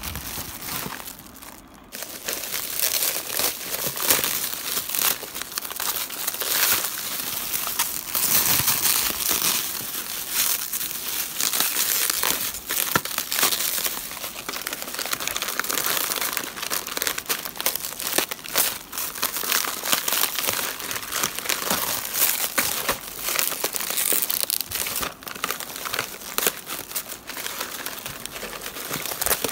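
Plastic packaging crinkling and rustling as hands unwrap cookie pouches from a cardboard box, with a brief quieter moment a second or two in.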